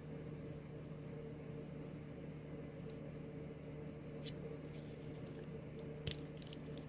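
A steady low hum with a few faint clicks and scrapes, about three seconds in, a second later, and a small cluster near the end, from handling a Swiss Army-style pocketknife and working at the toothpick and tweezers tucked into its handle.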